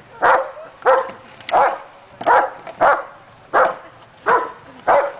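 German shepherd barking in a steady run of eight loud barks, about one and a half a second, at the closed end of a search-and-rescue training barrel: a trained bark alert signalling a find.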